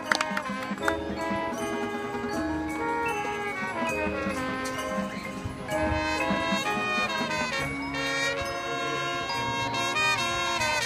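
High school marching band playing, led by brass holding sustained chords that change every second or so, with the front ensemble's marimbas and percussion underneath.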